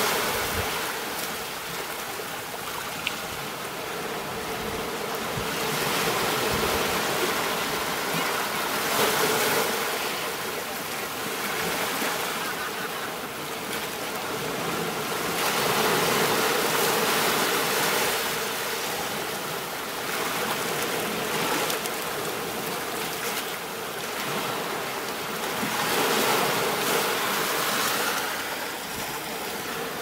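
Ocean surf washing up a beach, a steady rush of water that swells and eases every few seconds as each wave comes in and draws back.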